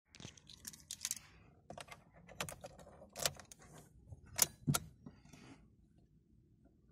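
Car keys jangling and clicking as the ignition key is put in and turned to the on position: a string of sharp clicks and rattles, the loudest about four and a half seconds in.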